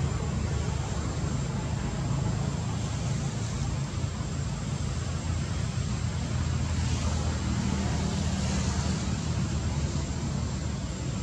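Steady outdoor background noise: a low rumble under an even hiss, with a thin, high, unbroken whine above it.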